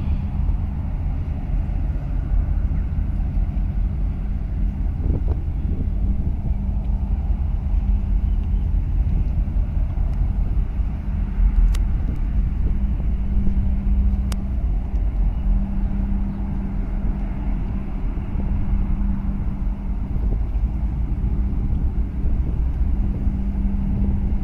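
Steady low rumble of a large container ship's and a harbour tug's engines across the water, with a low hum that fades in and out. Two faint clicks come near the middle.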